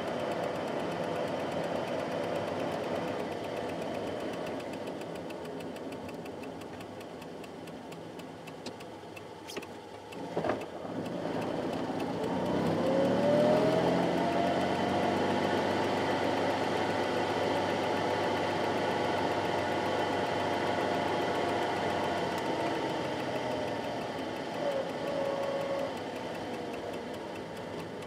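A 1969 Fiat 500's air-cooled two-cylinder engine running while the car is driven, heard from inside the cabin. About a third of the way in there is a short knock, then the engine pitch rises as the car accelerates and holds steady.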